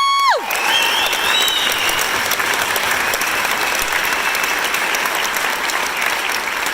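Audience applauding steadily, with a high-pitched held cheer that ends about half a second in.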